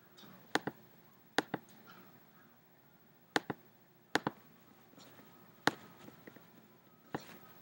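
Computer mouse clicking: about ten sharp, short clicks, several coming in quick pairs, spread over the seconds with a quiet room between.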